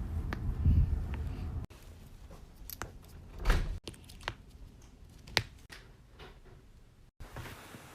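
Joints cracking: a series of separate sharp pops, the loudest and heaviest about three and a half seconds in, with abrupt cuts between short clips.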